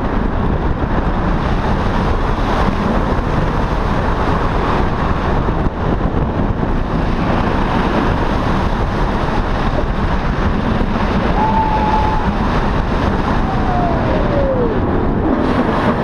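Onboard noise of a steel wing roller coaster in motion: a steady rush of wind over the microphone mixed with the rumble of the train running on its track.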